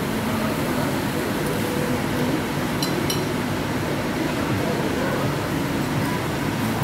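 Busy restaurant din: a steady rumble with indistinct background chatter, and two light metallic clinks about three seconds in.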